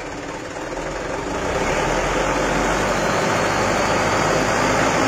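Mitsubishi Canter Super HDX truck's diesel engine and drivetrain running in fifth gear, the sound building over the first couple of seconds and then holding steady. With the rear propeller shaft disconnected at the center bearing, the transmission runs quiet, which points the earlier rough noise away from the gearbox.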